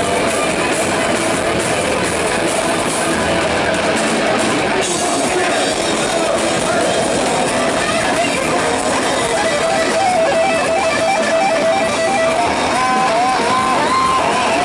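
Live heavy metal band playing loud, with a distorted electric guitar holding a long note that turns into wavering, bent notes near the end.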